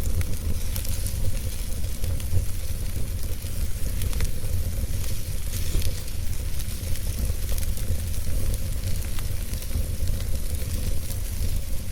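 Wood fire burning, with a dense, irregular crackle of small pops over a steady low rumble.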